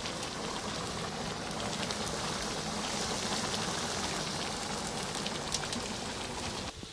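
Rice boiling hard in water in a large wide pot: a dense, steady bubbling hiss with small pops, cutting off near the end.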